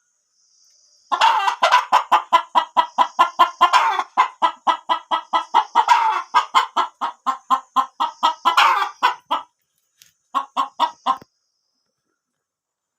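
A chicken clucking in a fast, even run of about four clucks a second, with a few longer, louder calls among them; it breaks off, then gives a short second run about a second later.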